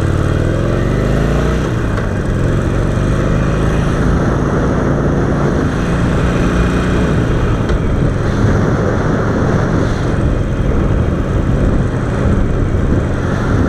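Harley-Davidson Sportster 48's air-cooled V-twin engine under way. Its note climbs as the bike accelerates over the first couple of seconds, then holds steady under a constant rush of wind and road noise.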